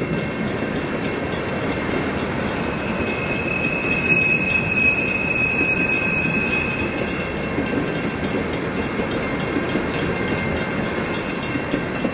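Freight train of tank cars rolling past: a steady rumble of steel wheels on the rails, with a thin, high wheel squeal that swells about three seconds in and fades by about seven.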